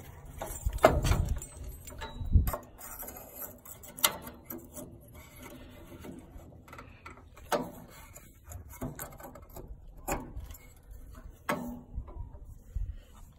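Scattered, irregular clicks and knocks of hands fitting igniter wire connectors onto a Weber Genesis gas grill's ceramic burner electrodes, with a louder knock and rumble about a second in.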